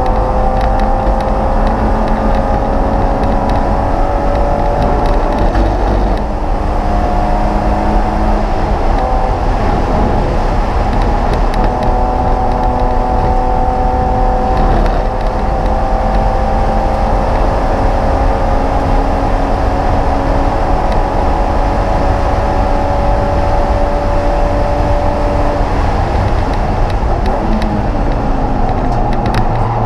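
Race car engine heard from inside the stripped cabin, pulling hard at speed with its pitch climbing slowly in a high gear, over steady road and wind noise. There is a shift and drop in pitch about six seconds in, and the pitch falls again near the end as it slows.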